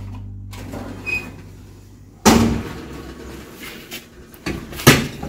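Clanking of a glass baking dish and the metal oven rack as the hot dish is pulled from a gas oven and set on the stovetop grates: one loud clank about two seconds in, then a few smaller knocks near the end. A strummed guitar chord fades out at the start.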